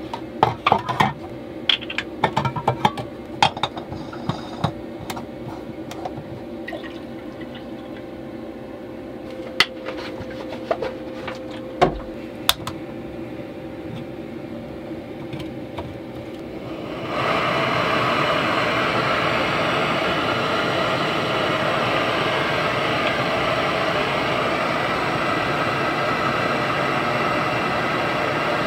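Clicks and clatter of a backpacking canister stove and its pot being handled and fitted together. About two-thirds of the way through, the gas burner lights and runs with a steady hiss.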